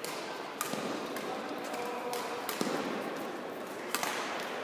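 Badminton rally: a racket hitting the shuttlecock in several sharp cracks, roughly a second apart, over the steady background noise of a sports hall.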